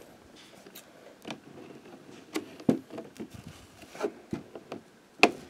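Hands working the tape seal off the top of a cardboard and clear-plastic figure box: scattered soft rubs and small clicks, with one sharper click near the end.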